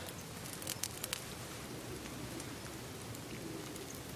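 Small twig campfire crackling faintly, with scattered sharp pops, a few of them close together about a second in.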